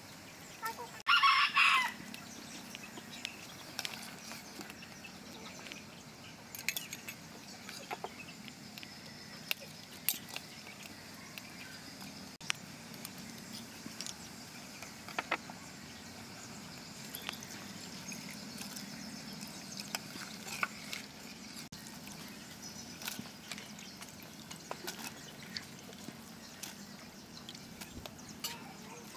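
A rooster crows once, loudly, about a second in. Afterwards there are only faint scattered clicks and taps from ingredients and utensils at a pot of boiling water.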